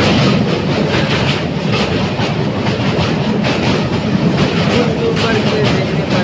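Passenger train running over a steel truss bridge, heard from inside the coach: a loud, steady rumble with dense clattering of wheels over the rails and bridge girders.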